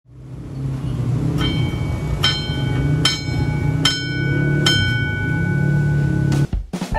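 Railway level-crossing warning bell ringing out five evenly spaced strikes, about one every 0.8 seconds, each tone ringing on, over a steady low rumble. The sound cuts off sharply near the end.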